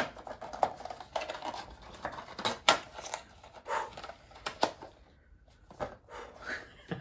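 Box packaging handled by hand: quick rustles and sharp clicks of cardboard and plastic as a plastic miniature is worked back into its small box, with a short lull about five seconds in.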